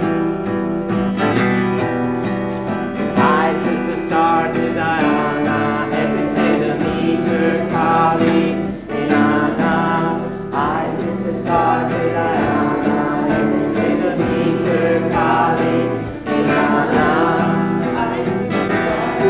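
Live acoustic folk song: a man singing with acoustic guitar accompaniment.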